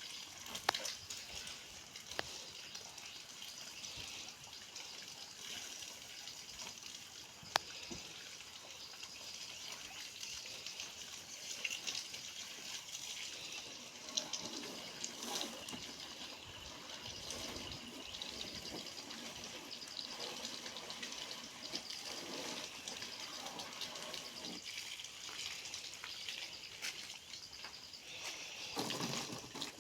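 Water running and splashing steadily as a Honda Activa scooter is washed, with a few sharp clicks in the first eight seconds.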